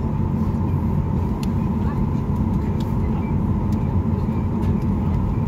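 Cabin noise of a Boeing 737-800 taxiing after landing: a steady low rumble from its CFM56 engines at idle and the wheels rolling on the taxiway, with a steady high tone over it.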